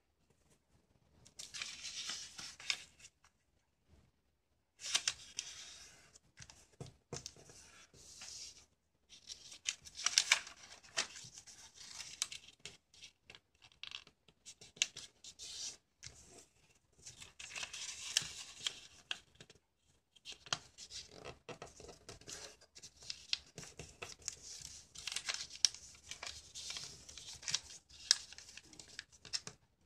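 Sheet of origami paper being folded by hand: bursts of rustling with sharp creasing strokes, broken by a few short silent pauses.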